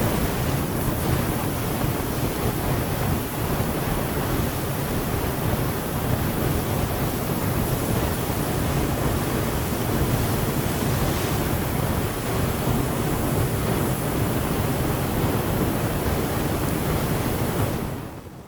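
Magic portal sound effect: a steady, dense rushing noise, like wind or surf, that fades out near the end.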